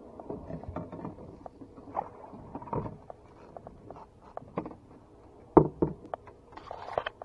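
Irregular clicks and knocks of gear being handled on a small fishing boat, with two louder thumps about five and a half seconds in.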